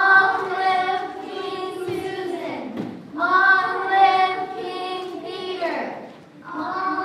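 Young voices singing together in long held notes. Two phrases of about three seconds each end in a downward slide, and a third phrase begins near the end.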